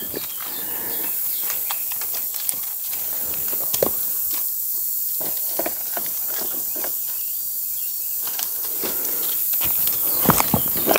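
Outdoor ambience: a steady high hiss with scattered small clicks and crunches. Near the end, footsteps crunching over dry leaves and twigs.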